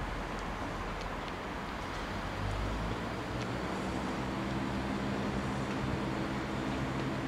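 Class 168 diesel multiple unit approaching, first as a steady rush of wind and track noise. About halfway through, the drone of its diesel engines comes in and grows steadily as the unit draws nearer under power.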